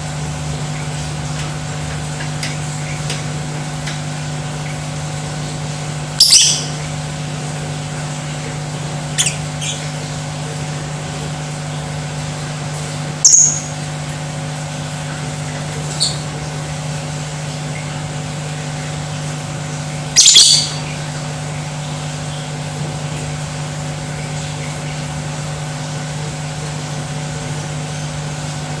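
Lovebird giving short, sharp, high-pitched calls, about five of them several seconds apart, over a steady low hum.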